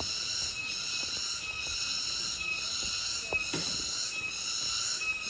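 Cicadas buzzing in a loud, high-pitched chorus that pulses evenly about twice a second.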